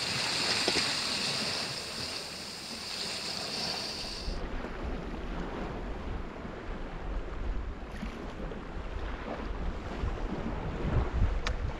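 Sea surf washing on a rocky shore with wind buffeting the microphone. The sound changes abruptly about four seconds in, with more low wind rumble after, and a single sharp click near the end.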